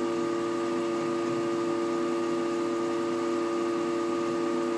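Desktop PC system unit humming steadily with several held tones and a faint crackling under them. This is the hum and crackle it makes while the computer freezes with a few browser tabs open, a fault the owner cannot explain.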